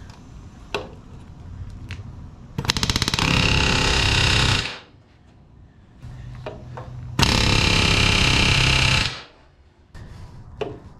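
Pneumatic rivet gun hammering in two runs of about two seconds each, a few seconds apart, driving solid aluminium rivets into an aluminium wing spar. Quieter tool handling comes between the runs.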